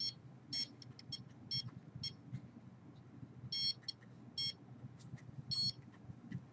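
Handheld RF signal detector beeping in short, high-pitched chirps at irregular intervals, some single and some in quick clusters. Each beep marks the detector registering a signal, which the owner takes for surveillance signals aimed at his body. A faint low hum runs underneath.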